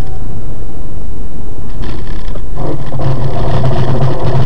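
Loud vehicle noise as heard by a dash cam: a steady road and engine rumble. About two and a half seconds in, a steady engine drone joins it.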